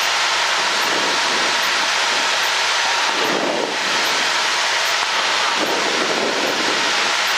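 Steady rushing cabin noise of a 1978 Cessna 172 Skyhawk in flight on approach: airflow and engine heard as an even, loud hiss with no clear engine note.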